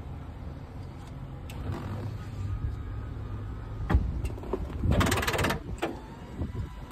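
Handling noises of a person climbing forward inside a minivan to the driver's seat: a sharp knock about four seconds in, then a longer scuffing rustle about a second later, with small clicks between.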